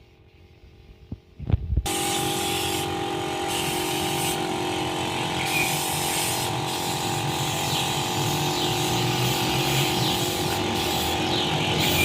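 An engine running steadily at a constant speed, cutting in abruptly about two seconds in after a faint hum.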